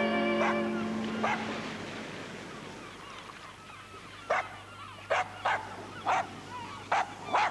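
A dachshund barking, a run of about six short, sharp barks in the second half, as bowed-string music dies away at the start.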